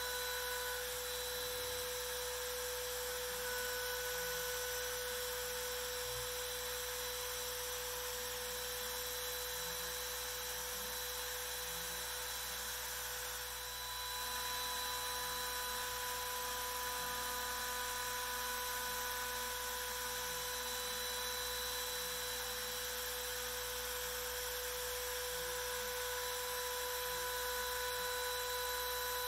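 MillRight Carve King 2 CNC router's spindle running with a steady high whine as its V-bit carves shallow grooves in MDF, with a brief dip in level about halfway through.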